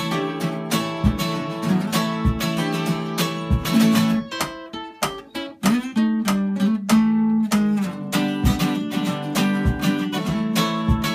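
Three acoustic guitars playing an instrumental passage together, strummed chords under picked lines, with no singing. The playing thins out briefly about halfway, then comes back in full.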